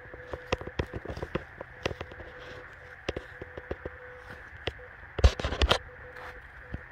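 Footsteps crunching through dry leaf litter and twigs, with brush crackling and snapping; a cluster of louder cracks comes about five seconds in.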